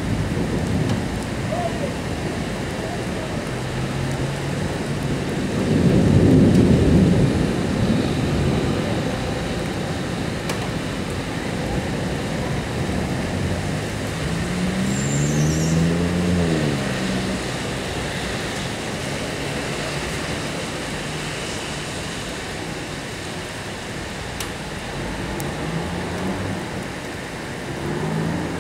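Steady rain during a thunderstorm, with a loud low rumble of thunder about six seconds in. A little after halfway, a pitched sound rises and then falls.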